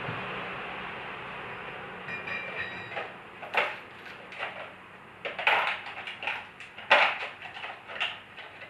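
A steady noise fading away over the first three seconds, then a run of irregular knocks and clatter, with a brief squeak-like tone just before the knocks begin.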